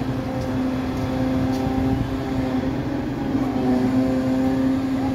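Mobile crane's diesel engine running steadily, its pitch dipping briefly a little past the middle.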